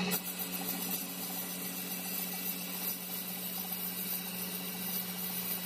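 Metal lathe running with a steady hum, spinning a tractor brake disc in its chuck while the disc is being resurfaced.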